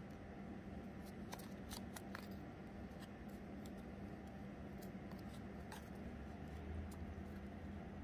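Faint, scattered clicks and rustles of small craft pieces (cardboard and pins) being handled and fitted together, over a steady low hum.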